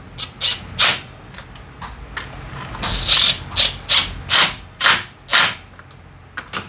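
Cordless impact wrench fired in about a dozen short trigger bursts, hammering on the bolts of a motorcycle's rear swingarm and footrest bracket, with a longer run about three seconds in.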